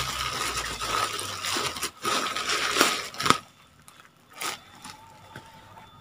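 Black plastic mailer bag crinkling and rustling as it is pulled off a parcel by hand, with a few sharp crackles. The rustling dies down after about three and a half seconds, leaving one more short crackle.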